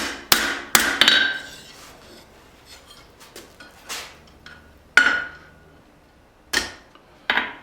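Hand hammer striking hot leaf-spring steel on an anvil while curving the point of a forged knife. A quick run of four blows, a pause with a few light taps, then single hard blows, one leaving a brief ringing tone.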